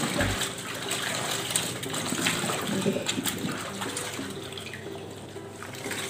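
Water splashing and sloshing in a twin-tub washing machine's tub as a wet carpet is worked by hand during rinsing.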